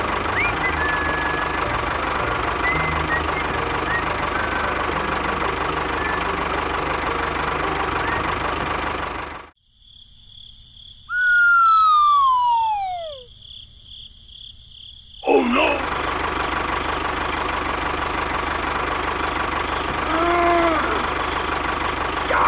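A tractor engine runs steadily, then cuts off sharply about nine and a half seconds in. In the pause a whistle slides down in pitch over about two seconds. The engine sound comes back suddenly about fifteen seconds in and runs on steadily.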